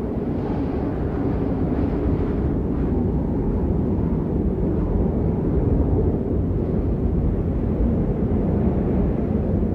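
Strong wind blowing steadily as a deep, low rush, with gusts swelling briefly in the first few seconds.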